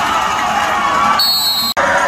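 Football stadium crowd cheering and shouting as a tackle is made. About a second in, the crowd falls back under a short high steady tone, then the sound cuts off sharply for an instant before the crowd noise returns.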